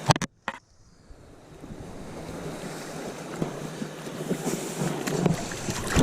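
Rushing river water with wind on the microphone: a steady noise that grows gradually louder. Near the start come a couple of sharp knocks and a brief dropout.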